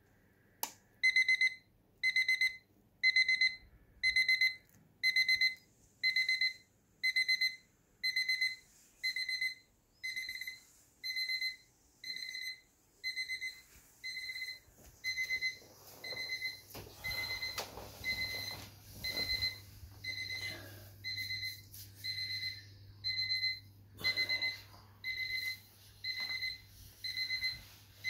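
Battery analogue alarm clock ringing: a high electronic beep repeating about once a second, the early beeps the loudest.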